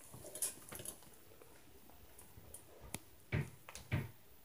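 Footfalls from the apartment above, heard through the ceiling: scattered light knocks and clicks, then two heavier thuds about half a second apart near the end.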